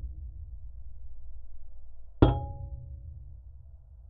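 Rusted steel of an old truck struck once about two seconds in, heard through a geophone as a sharp hollow knock with a ringing tone that dies away over about a second. The tail of an earlier strike fades at the start, over a low steady rumble.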